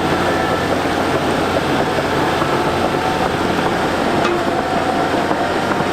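A large crawler bulldozer working: a steady diesel engine drone mixed with dense clattering noise from the tracks.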